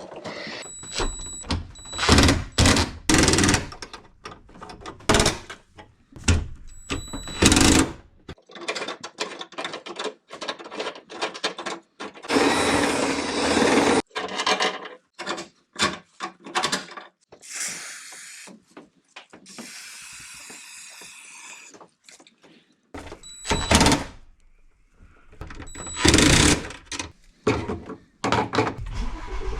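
Intermittent metalworking tool sounds: short runs of a power drill mixed with knocks and clatter of metal parts, coming in many brief, irregular bursts, with a few longer drill runs of a second or two near the middle.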